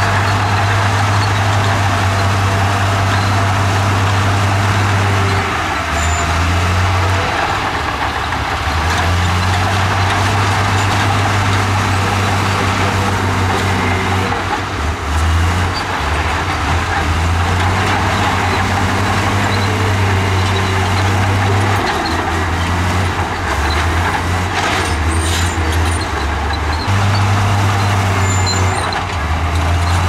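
Komatsu crawler bulldozer's diesel engine running under load as it pushes rock and dirt: a loud, steady low drone that dips and shifts slightly now and then, under a wide rough noise.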